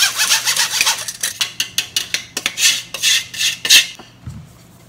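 Metal spoon scraping flour and matcha powder through a stainless-steel mesh sieve over a metal bowl, in quick, repeated raspy strokes. The strokes stop about four seconds in.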